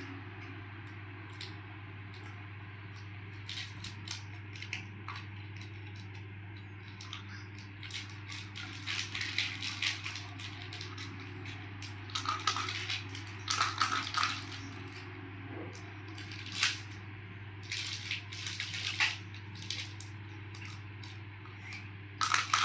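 Scattered light clicks and clatters of small hard objects knocking together, coming in bunches, over a steady low hum.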